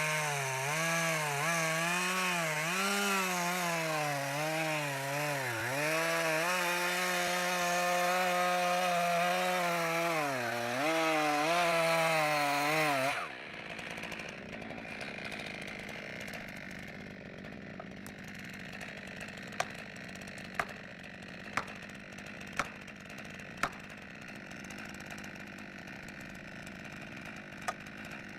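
Chainsaw cutting through a large trunk, the engine's pitch wavering and dipping twice as it bogs under load, then cutting off abruptly about halfway through. A quieter stretch follows, with about five sharp knocks roughly a second apart, then two more.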